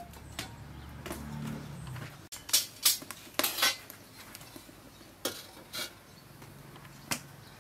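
Metal cookware clanking: a series of sharp knocks, loudest around three seconds in, with a few lighter clanks later as an aluminium pot is set down on a wok.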